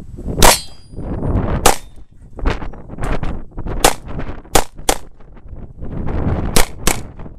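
Handgun shots fired on a practical shooting course of fire: nine shots at uneven spacing, the last four in two quick pairs, with a short metallic ringing after the first shot.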